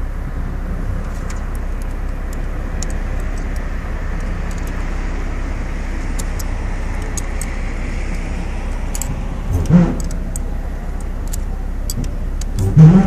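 Light metallic clinks and ticks of hand tools working on a metal panel seamer, over a steady outdoor rumble, with two louder bumps about ten and thirteen seconds in.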